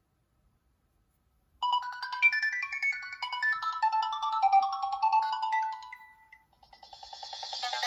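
Nokia 6260 mobile phone playing a built-in ringtone melody of quick, stepping notes, starting about a second and a half in and fading out near six seconds; a new passage then begins and grows louder toward the end.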